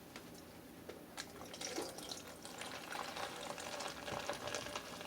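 Ginger ale poured into a styrofoam cup and fizzing: a few clicks, then from about a second and a half in a dense crackle of bursting bubbles.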